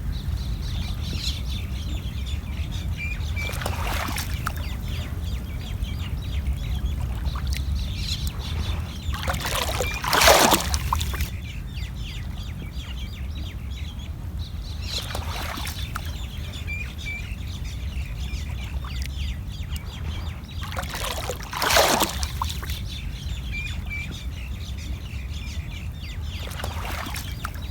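Small sea waves washing onto the shore about every five to six seconds, two of them louder, over a steady low rumble. Birds chirp through it, a short two-note chirp repeating every few seconds.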